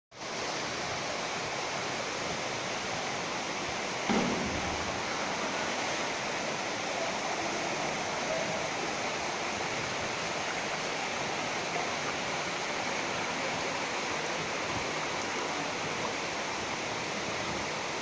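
Steady rush of water from a waterfall, an even hiss without change, with one brief thump about four seconds in.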